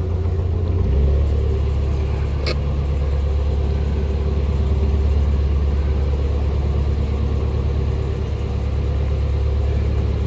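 Narrowboat's diesel engine running steadily under way, a low, even hum that gets louder and deeper about a second in. A short high tick sounds once, a couple of seconds in.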